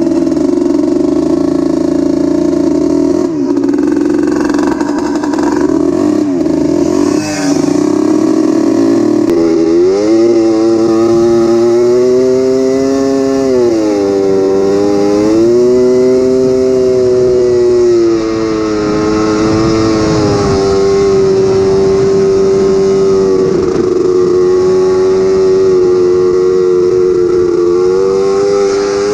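ATV engine running at riding speed, its pitch mostly steady but dipping and climbing back when the throttle is eased, about 13 seconds in, again a few seconds later, and near the end. The first several seconds are rougher, with rattling.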